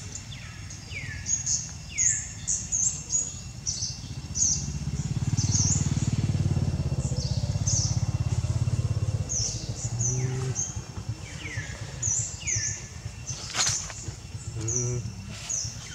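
Birds chirping throughout in short, quick falling notes, while a passing engine's low hum swells for about five seconds in the middle and then fades. There is a sharp click near the end.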